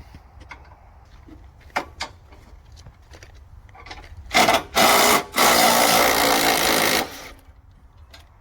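A small power tool's motor runs in three short bursts, the last about one and a half seconds long, after a few light knocks of handling.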